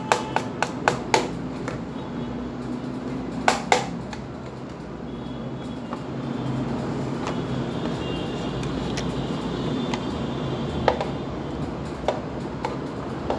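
Hard plastic toy food and a toy knife clicking and tapping: a quick run of sharp taps at the start, two more a few seconds in and a few near the end, over a steady low hum.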